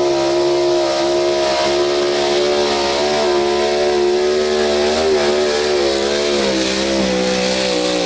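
Pro Stock 4x4 pulling truck's engine held at high revs under full load during a pull, loud and steady, its pitch sagging slightly over the last couple of seconds.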